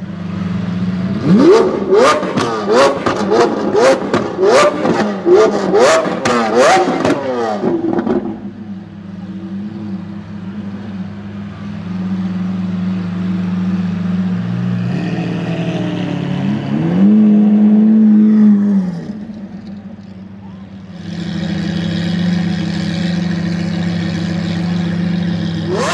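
Lamborghini Aventador's V12 blipped hard about nine times in quick succession, each rev rising and falling, with sharp pops and crackles from the exhaust. It then settles into a steady idle, with one brief held rise in revs about two-thirds of the way through.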